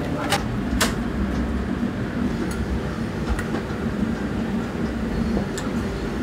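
A steady low rumble with a few light clinks of small dishes being handled on the counter, two close together near the start and one more a little past the middle.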